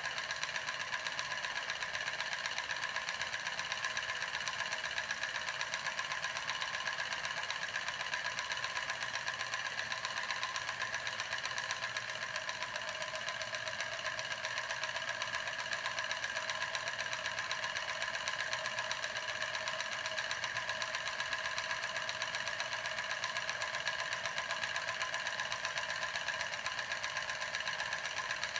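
Small homemade steam engine running: a drink-can boiler drives a syringe piston and CD flywheel, with a rapid, even clatter that keeps up without letting up.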